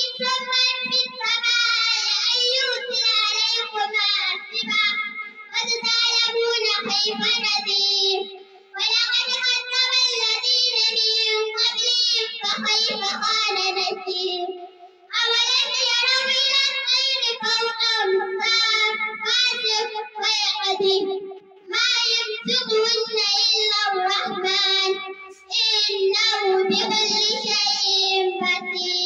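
A young girl's voice chanting a Quranic recitation in Arabic into a microphone, in long melodic phrases broken by four short pauses for breath. The voice echoes slightly off the room's bare walls.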